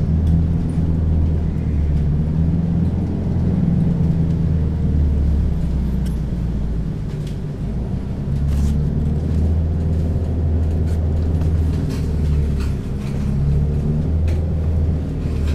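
The diesel auxiliary engine (Hilfsmotor) of a Hess BGT-N2C articulated trolleybus idling, a steady low rumble that swells and eases a little. The bus is running off the overhead wire on this engine, its trolley poles lowered.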